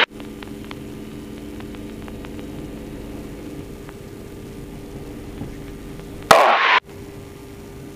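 Yak-52's nine-cylinder radial engine and propeller droning steadily as a few level tones over a low rumble and hiss, as heard in the cockpit through the headset intercom. A short burst of voice cuts in about six seconds in.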